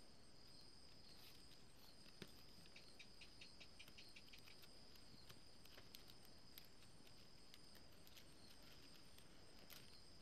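Near silence: faint scattered clicks and light ticking from stiff plastic weaving strips being handled and threaded, over a steady faint high-pitched background tone.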